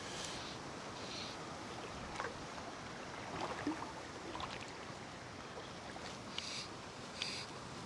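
Steady rushing noise of river water and wind buffeting the microphone, with a few small knocks a few seconds in and several brief high-pitched sounds near the end.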